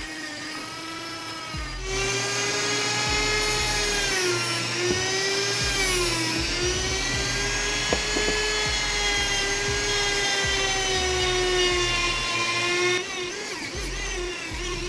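Dremel rotary tool spinning a felt buffing wheel against a GY6 scooter cylinder head to polish it: a high motor whine that wavers and dips in pitch as the wheel is pressed on. It gets louder about two seconds in and drops back a little near the end.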